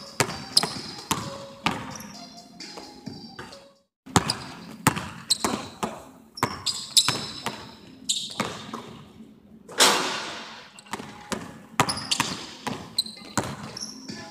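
Basketball dribbled hard on a hardwood gym floor, the bounces echoing around the big hall, with short sneaker squeaks between them. The sound cuts out completely for a moment about four seconds in, and there is one louder bang with a long ring-out about two-thirds of the way through.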